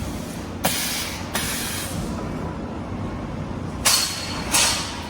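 Fiber laser tube-cutting machine running with a steady hum, broken by four short hisses of gas.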